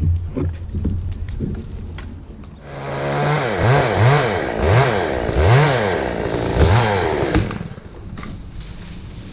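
Chainsaw running low with a few knocks, then from about three seconds in revved up and down about five times, its pitch rising and falling with each throttle blip, before dropping back near the end.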